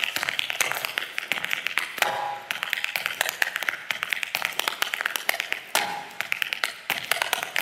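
Percussive solo footwork: hard dance shoes rattling out fast, irregular taps on a stage floor, with no music.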